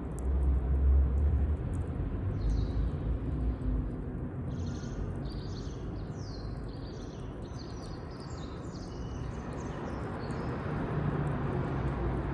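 A bird singing a quick run of short, high notes through the middle, over a steady outdoor background. A low rumble opens the stretch, with faint scattered clicks throughout.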